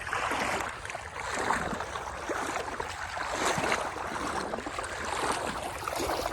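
Water sloshing and swirling around a person's legs as they wade through knee-deep floodwater, with uneven swells.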